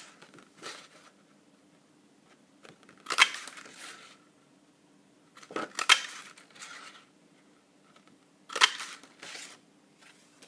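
Handheld Christmas tree craft punch snapping down through patterned paper three times, about two and a half seconds apart. Each sharp clack is followed by a short rustle of paper.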